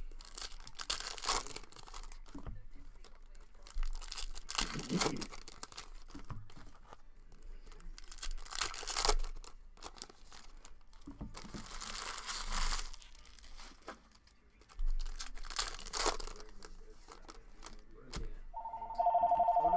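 Foil trading-card pack wrappers being torn open and crinkled by hand, in about five separate bursts of rustling. Near the end a telephone starts ringing.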